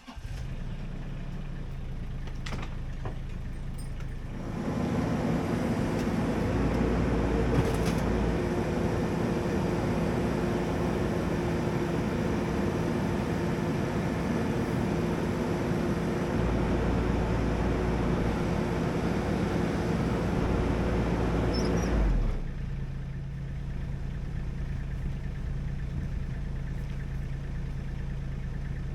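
An engine running steadily, working harder from about four seconds in, louder and higher, then easing back to its lower note at about 22 seconds.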